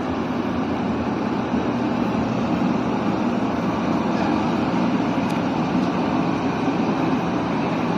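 Excavator carrying a Lieyan PL1000L integrated rock drill and splitter, its machinery running steadily.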